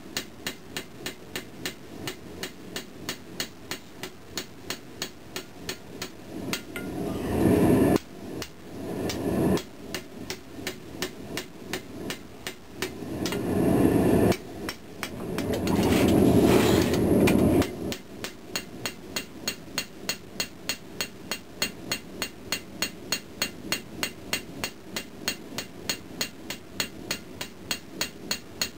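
Ball-peen hammer striking hot pattern-welded steel on an anvil, drawing out and shaping a knife blade, in a steady rhythm of about three blows a second. Twice a louder rushing noise swells up under the blows and cuts off suddenly.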